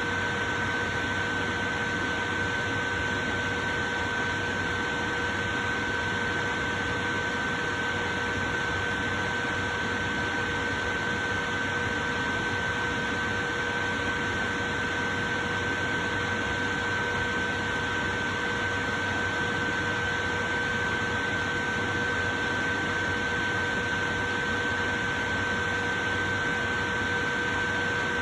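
Portable electric fan running steadily: an even rushing of air with a constant motor hum, unchanging throughout.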